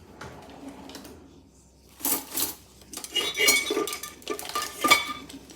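Metal pots and utensils clattering and clinking. After a quiet start, a run of knocks with a ringing metallic tone begins about two seconds in and lasts about three seconds.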